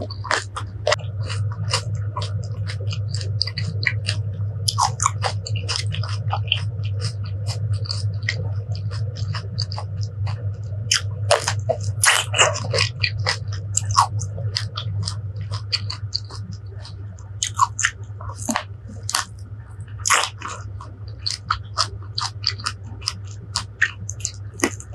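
Close-miked chewing and biting of crisp fresh fruit, with sharp crunching clicks throughout. The crunching is loudest about halfway through, when she bites into a small yellow Marian plum.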